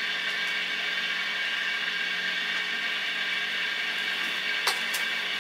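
Steady hiss and low hum from a 1941 Wards Airline tube radio's speaker, with faint steady whistles in the noise and a couple of sharp crackling clicks near the end.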